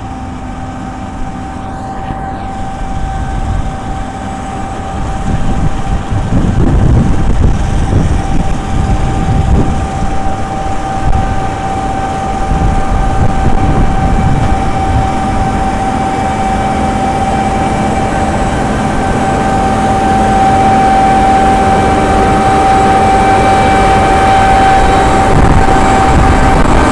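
John Deere S790 combine harvester running while cutting winter barley: a steady machine drone with a constant high whine. It grows louder about five seconds in, then runs evenly.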